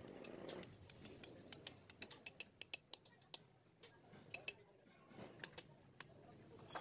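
Faint, irregular light clicks and taps of small engine parts being handled and fitted by hand, a quick run of them from about a second in, then sparser.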